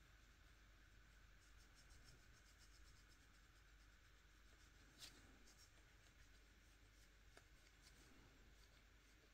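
Near silence, with a faint scratchy rubbing as a sponge-tip applicator buffs chrome powder onto a gel nail, and one small click about five seconds in.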